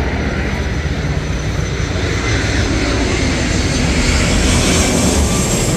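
Passenger plane flying low overhead, its engine noise building steadily louder, with a rising hiss near the end.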